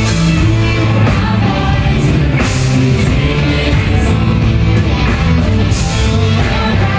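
Live rock concert music: a band playing with singing, loud and steady, with repeated cymbal crashes.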